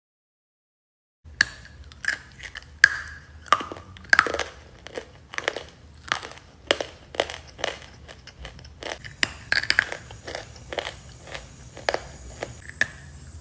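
Close-up crunching of dry Ural clay being bitten and chewed, starting about a second in: a string of sharp crunches roughly one or two a second.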